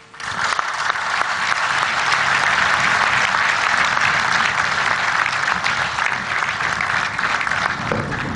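A large seated audience applauding, starting suddenly and holding steady.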